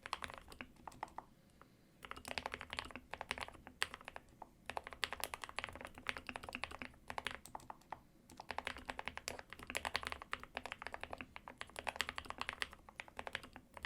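Typing on a GK61/SK61 60% mechanical keyboard fitted with lubed Gateron optical black linear switches: fast runs of keystrokes broken by short pauses.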